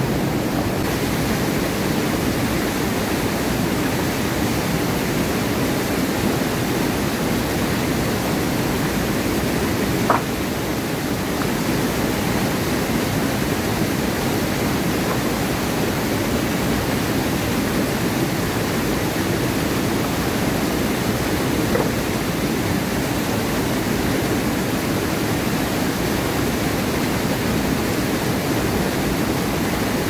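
Waterfall rushing: a loud, steady roar of falling water, with a single brief click about ten seconds in.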